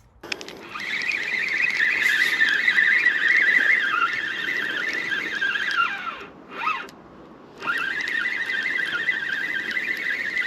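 Spinning fishing reel being cranked, a steady whirring whine of the reel's gears as line is wound in. The winding slows and stops about six seconds in, then starts again a second and a half later.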